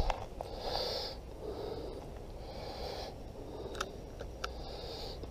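A man's breathing close to the microphone, in repeated puffs about a second long, with two or three light clicks around four seconds in.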